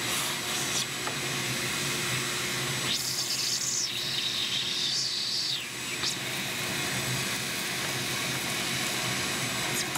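Vacuum cleaner running steadily, its brush nozzle sucking ash out from under a pellet stove's fire pot. A higher hiss comes and goes for a few seconds in the middle as the nozzle moves.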